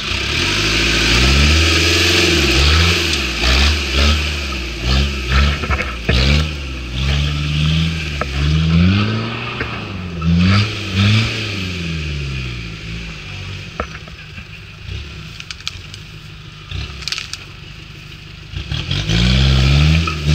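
Lifted Toyota Hilux pickup's engine revving up and down over and over as the truck crawls through deep ruts, with occasional sharp knocks. It drops back to a lower, quieter running for several seconds past the middle, then revs again near the end.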